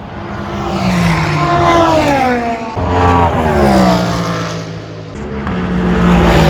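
Endurance race cars passing at speed in three short shots that change abruptly. In each shot the engine note drops in pitch as the car goes by.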